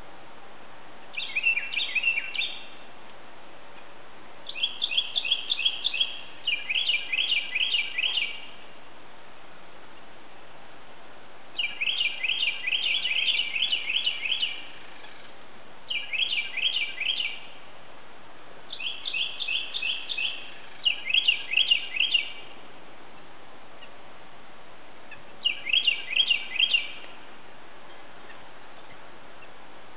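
Northern cardinal singing: about eight phrases of quick, repeated down-slurred whistles, each lasting a second or two, with pauses between them.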